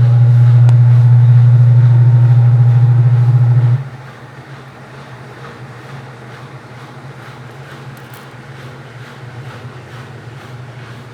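Midea 12 kg washing machine running with a loud, steady low hum that drops off sharply about four seconds in and then carries on much more quietly.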